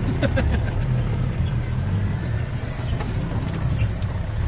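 Old four-wheel-drive jeep engine running steadily at low revs while crawling over a rough, muddy track, with scattered knocks and rattles.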